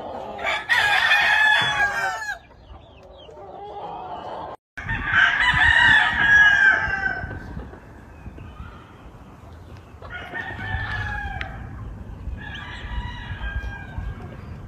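Gamefowl roosters crowing in turn: two loud crows in the first half, followed by fainter crows from birds farther off.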